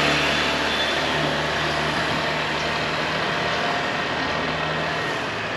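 A motor vehicle's engine running steadily, a low drone under street traffic noise.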